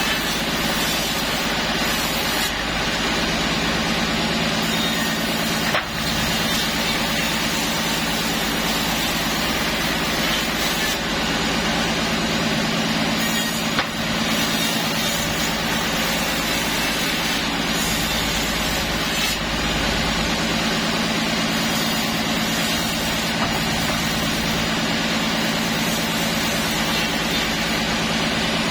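Sawmill machinery running steadily: a loud, continuous engine-like drone with a low hum, dipping briefly about six and fourteen seconds in.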